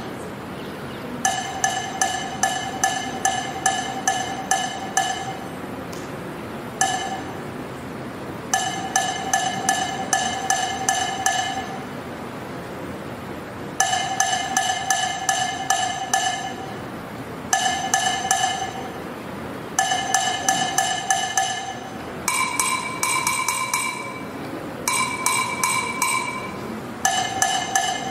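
Bell-like metallic ringing in quick repeated strikes, coming in bursts of two to four seconds with short gaps between them; in two bursts near the end the ringing is higher in pitch.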